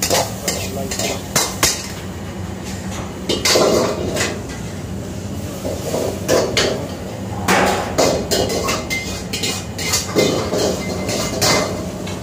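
Metal ladle clanking and scraping against a wok as vegetables are stir-fried, with irregular sharp clangs over a steady low hum.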